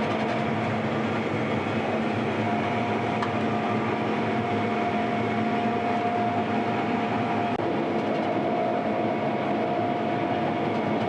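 Combine harvester running steadily while harvesting wheat: an even mechanical drone with a constant whine over it.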